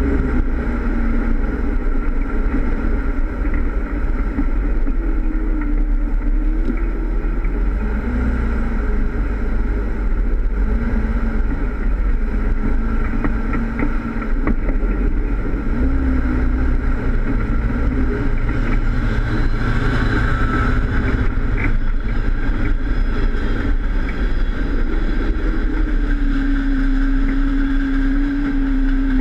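Jeep Wrangler engine running as it drives an off-road course, its pitch wavering with the throttle and settling a little higher near the end, heard from a camera on the front bumper.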